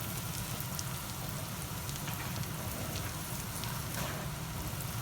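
Butter and garlic sizzling in a smoking-hot wok: a steady crackle with scattered small pops.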